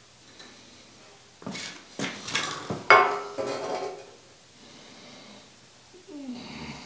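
Magnetic welding squares snapped onto a steel plate: a few sharp metal clanks with a short ring, the loudest about three seconds in.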